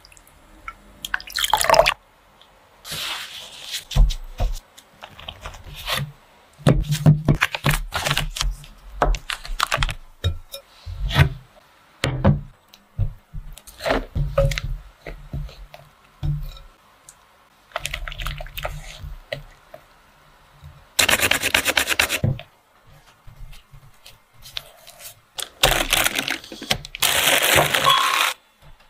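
Kitchen prep in glass bowls: a run of short splashes, knocks and scrapes as wet cherry blossom petals are worked in water and butter is mixed with powdered sugar, with two longer hissing stretches near the end.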